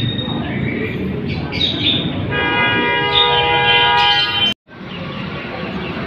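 Caged songbirds chirping over steady background noise, then a horn sounding one steady chord for about two seconds, cut off suddenly about four and a half seconds in.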